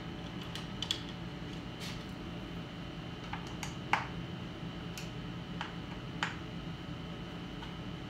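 Scattered light clicks and taps of a small screwdriver working on screws and parts inside an opened iMac, about eight in all, the sharpest a little before halfway, over a steady room hum.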